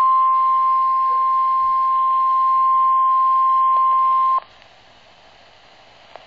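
NOAA Weather Radio warning alarm tone, the steady single 1050 Hz tone, cutting off sharply about four seconds in and leaving faint radio hiss. It is the alert that signals an emergency weather warning message is about to follow.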